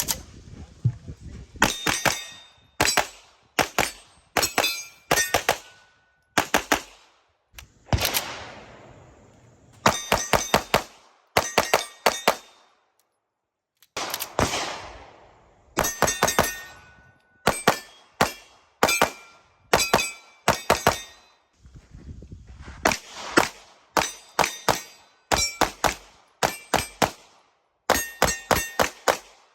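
Pistol fired in quick strings at steel plates, each shot followed by the metallic ring of a hit plate, with short pauses between strings.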